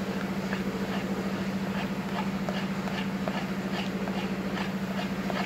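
Spoon stirring a thick, thickening halwa batter in a speckled coated pan, with soft scrapes and taps about two or three times a second over a steady low hum.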